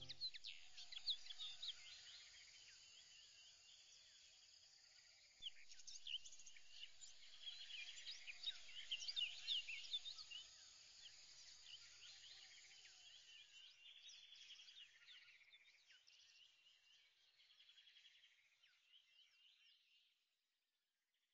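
Faint birdsong: many birds chirping together in short rising and falling calls, busiest in the middle and fading out near the end.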